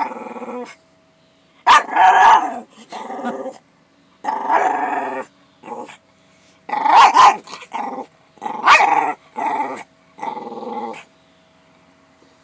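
Small black-and-tan dog vocalising in a string of about ten short and drawn-out calls, stopping about a second before the end, while begging for a share of an egg.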